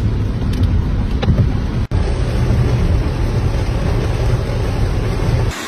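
Wind buffeting the microphone over rushing water: a loud, steady rumble and hiss. The sound drops out for an instant about two seconds in and changes to a thinner hiss near the end.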